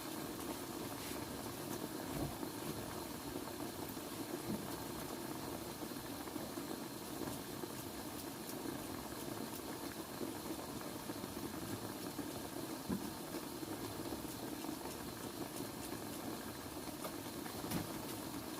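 Pan of chicken adobo simmering on the stove: a steady bubbling hiss with a few faint clicks.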